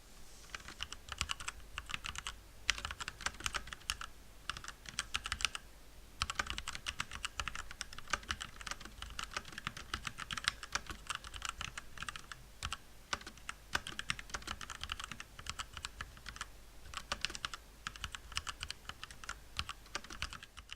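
Motospeed CK104 mechanical keyboard with Outemu Red linear switches being typed on, a fast continuous run of key clacks with brief pauses about two and a half and six seconds in.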